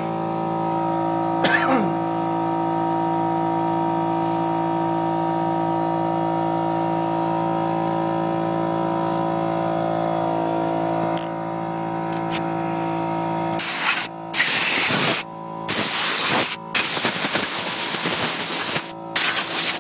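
Paint being sprayed in five short hissing bursts with brief pauses, starting a little over two-thirds of the way in, over a steady machine drone.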